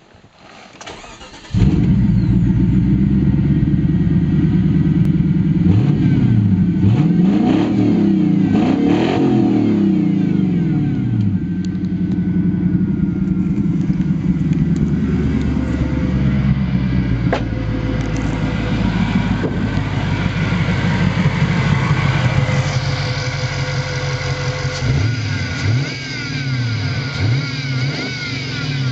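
Nissan VH45DE 4.5-litre V8 with the exhaust open after the catalytic converters: it cranks briefly and catches about a second and a half in, then idles loudly. It is blipped through several rising and falling revs, once in the middle and again near the end.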